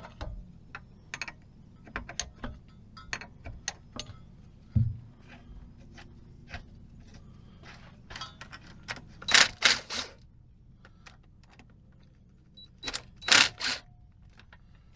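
A cordless impact driver unbolting an air governor from a Caterpillar diesel engine's air compressor, in two runs of about three short bursts each, one about nine seconds in and another about thirteen seconds in. Small metal clicks and clinks of tools on the fittings come between the bursts.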